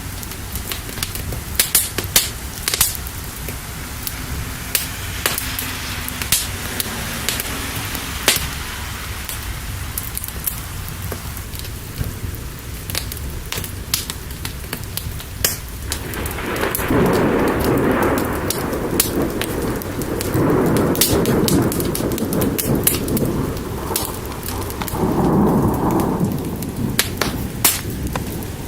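Steady rain with sharp crackles and pops throughout. In the second half thunder rumbles in three long rolls, the loudest thing in the stretch.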